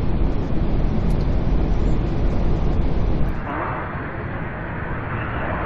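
Steady low rumble of air and engines inside an Airbus A380's cockpit on final approach. About three seconds in, it cuts to the A380's jet engines heard from outside as the airliner approaches, a quieter, higher hiss without the deep rumble.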